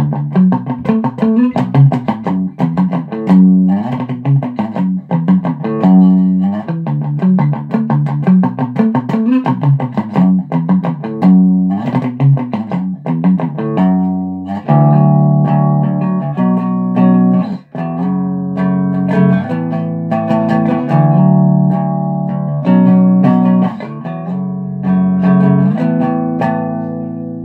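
Electric guitar played clean: a run of quick picked notes in the first half, then slower, ringing chords from about halfway through, ending on a held chord.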